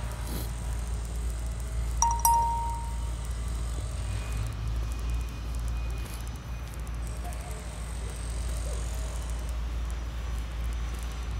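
Outdoor park ambience: a steady low rumble, with a short ringing tone about two seconds in.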